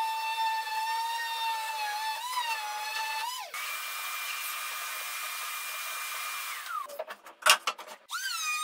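Electric sheet (finishing) sander running on a wooden cabinet door: a steady whine that dips slightly as the pressure changes. About halfway through it gives way to a higher whine over a hiss that winds down; a few sharp clicks and a knock follow, then the sander's whine starts again at a higher pitch near the end.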